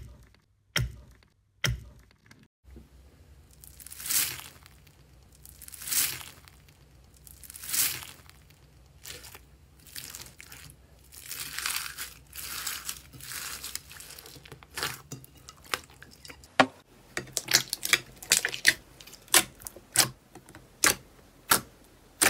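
Slime being squished and kneaded by hand, with slow sticky squelches about every two seconds. From about two-thirds of the way through it turns to rapid sharp clicks and pops as fingers press and poke into clear glitter slime.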